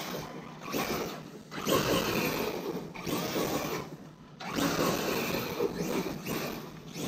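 Arrma Kraton 8S electric RC truck driven hard on dirt: its brushless motor whines up in three throttle bursts while the tyres spray loose dirt, the whine rising in pitch as it accelerates.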